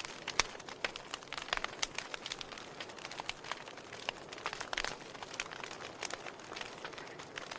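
Fire crackling, with frequent irregular sharp pops and snaps over a low steady hiss.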